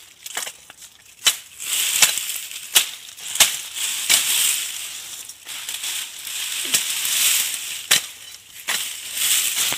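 Sharp chopping strikes, about nine of them at roughly one-second intervals, with crunching and rustling between them: a wild date palm's fibrous stalks and dry fronds being hacked through to reach its edible stem.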